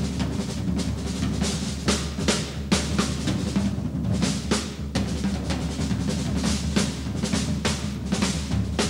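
Big band jazz drum solo on a full drum kit: rapid snare and tom strokes and rolls, cymbal hits and bass drum, several strokes a second.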